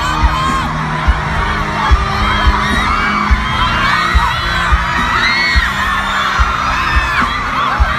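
A crowd of fans screaming and cheering over a deep thumping beat. The thumps come in pairs like a heartbeat, roughly every second and a half.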